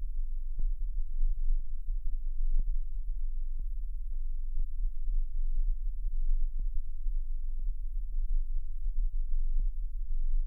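Arturia Modular V3 software synthesizer patch: a deep, steady low drone with short clicks and blips scattered irregularly over it, about one or two a second, a few with a brief pitched ping.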